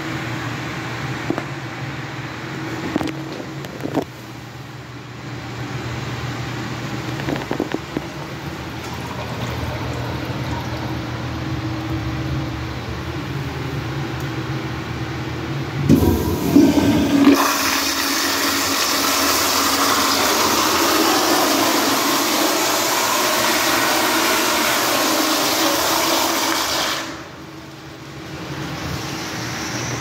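Commercial flushometer toilet being flushed. A clunk as the chrome flush valve's handle is pushed, then a loud rush of water for about ten seconds that cuts off sharply as the valve closes. Before the flush there is a steady low hum with a few light knocks.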